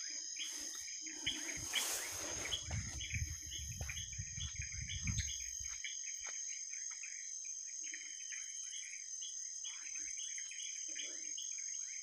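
Night insects trilling steadily, with a chorus of short, regularly repeated chirps, about two or three a second. A low rumble runs through the first half.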